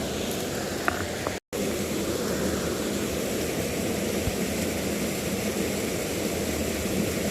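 Steady rushing of a shallow stream flowing over rocks, broken by a split-second gap about a second and a half in.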